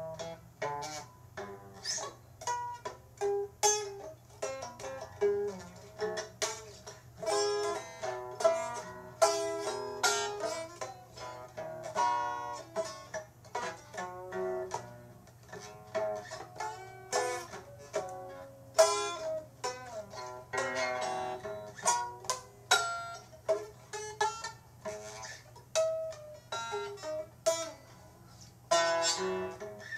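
Music on a plucked string instrument, with notes picked in quick succession, each striking sharply and fading fast, over a faint steady low hum.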